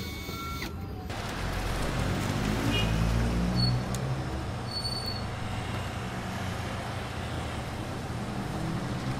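A cordless drill whines in short pulses for the first second. Then a passing motor vehicle's engine rumbles low, swelling over a couple of seconds and settling, with a couple of short high squeaks.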